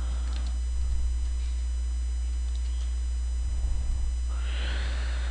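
Steady low electrical mains hum in the recording, with a few faint keyboard taps as text is typed.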